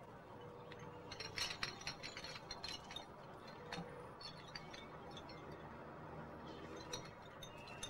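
Small lamps being taken down and handled, giving faint, irregular clinks and clicks, thickest in the first three seconds.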